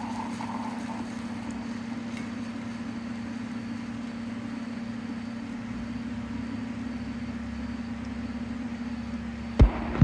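OXX Coffeeboxx single-cup coffee maker humming steadily while it brews into the mug. Two sharp knocks close together near the end are the loudest sounds.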